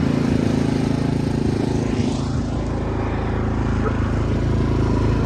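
Car engine held at steady, raised revs with a hiss over it, as the car sits stuck in deep snow.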